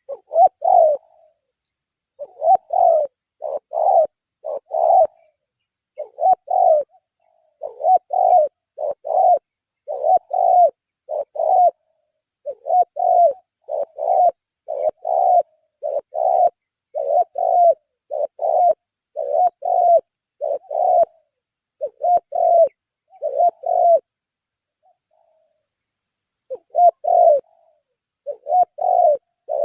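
Spotted dove cooing: a long series of rounded, repeated coo notes, roughly one to two a second, with a pause of a couple of seconds near the end.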